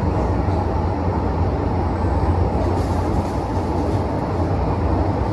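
Interior running noise of a Hong Kong MTR Metro-Cammell M-Train electric multiple unit under way between stations: a steady low rumble that holds even throughout.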